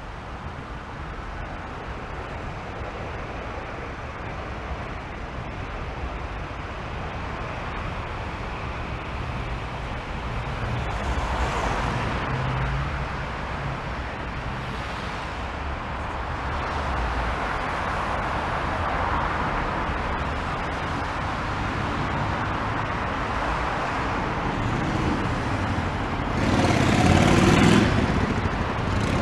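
City road traffic: steady tyre and engine noise of passing cars that builds gradually. Near the end, one vehicle passes close and loud.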